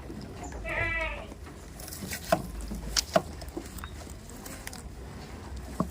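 A goat bleats once, a short wavering call about a second in. A few sharp knocks or clicks follow later.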